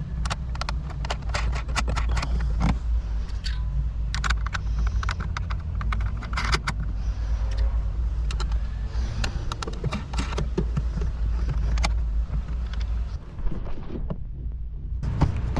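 Socket ratchet tightening the nuts that hold a car taillight assembly, in runs of quick metallic clicks with clinking of tools, over a steady low rumble.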